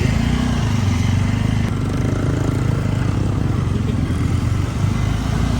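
Motorcycle engine running steadily under way, with rushing wind and road noise.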